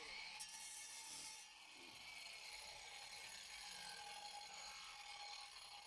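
Near silence: a faint steady hiss with a faint thin hum.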